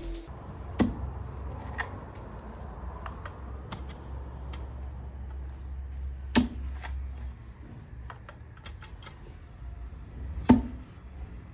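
A digging tool striking and scraping hard, compacted soil: three sharp knocks, about a second in, about six seconds in and the loudest near the end, with smaller ticks and scrapes between them over a low steady rumble.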